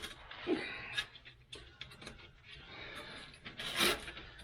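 Aluminum foil crinkling and rustling in a few short bursts as it is packed up into a gap, the loudest burst near the end.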